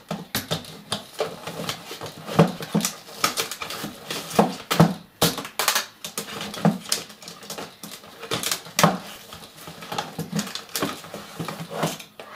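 Irregular clicks, knocks and clatter of makeup palettes being shifted and stacked by hand inside a makeup train case.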